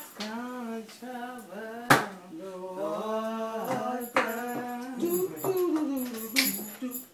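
A person singing long, drawn-out notes unaccompanied, with a few sharp smacks breaking in.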